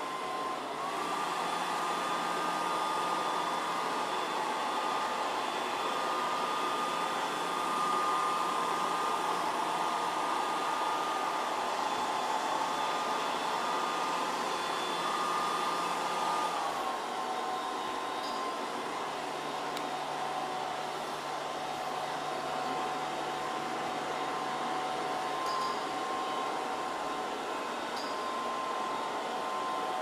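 Robot vacuum cleaner running, a steady whirring hum from its suction fan and brushes. Its high whine drops slightly in pitch a little past halfway, then holds steady again.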